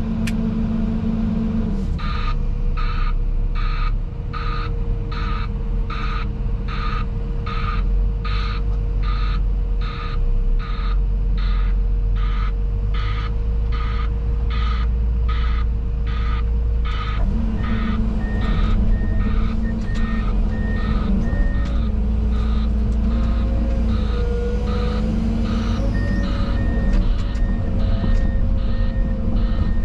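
A heavy machine's reversing alarm beeps steadily, about one and a half beeps a second, over the low rumble of a diesel engine running. After about halfway the engine note changes, and a second, higher-pitched beep sounds on and off.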